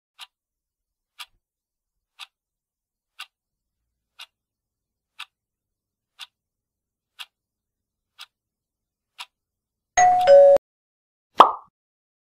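Countdown-timer sound effect: a clock ticking once a second, ten ticks, then a short buzzer of two steady tones stepping down in pitch, the loudest sound, as the timer runs out. About a second later comes one sharp hit of a transition sound effect.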